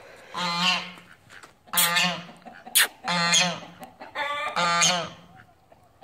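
Domestic goose honking over and over, about one call every second or so, with a sharp click about three seconds in.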